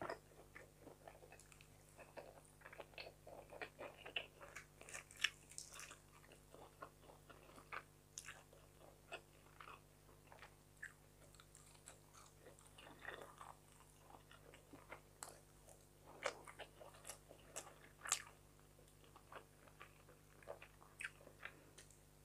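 Soft, close-miked chewing of fried fish and rice eaten by hand, with many short, irregular wet mouth clicks and smacks.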